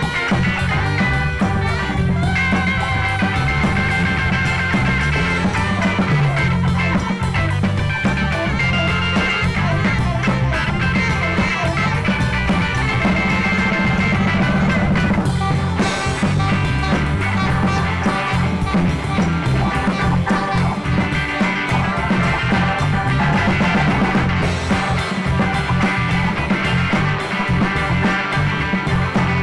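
Live band jamming a loud rock-funk groove: electric guitar, bass, keyboards, saxophone and drums playing together over a steady driving beat.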